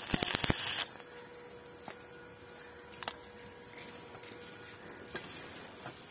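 Stick (arc) welding electrode crackling for under a second as a tack weld is laid on a steel bracket. A few faint clicks follow as the tacked sprocket and chain are turned by hand.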